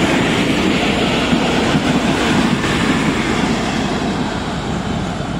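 Passenger train coaches rolling past close by, a loud, steady rush of wheel and running noise on the rails, easing a little toward the end as the last coach goes by.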